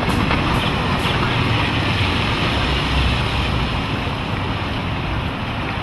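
Twin Mercury 225 OptiMax outboards running at speed on a 30-foot center console boat, heard as a steady low rumble mixed with rushing water from the hull and wind noise.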